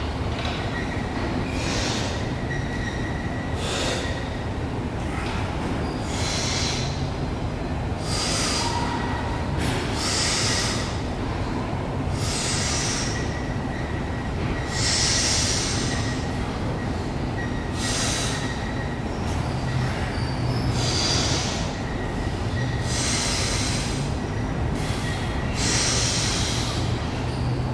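A lifter's quick, forceful breaths, one every second or two, as he braces at the bar before a heavy sumo deadlift, over a steady low room rumble.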